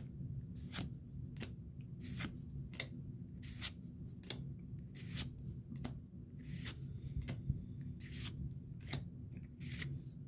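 Pokémon trading cards being slid one behind another out of a freshly opened pack, each card giving a short swish, about one every 0.7 seconds.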